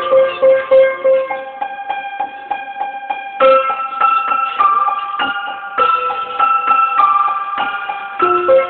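Instrumental keyboard music with a piano-like tone. A single note repeats rapidly for about the first second, then sustained chords change about once a second.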